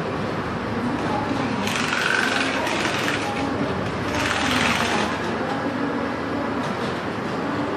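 Sleeper-laying gantry crane travelling along the wagons of a track-laying train, a steady mechanical running noise with two louder hissing surges about two and four seconds in.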